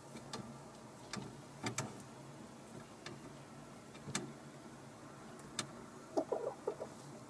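Hens in a wooden henhouse: scattered light taps and scratches, then a short run of soft, low clucks near the end.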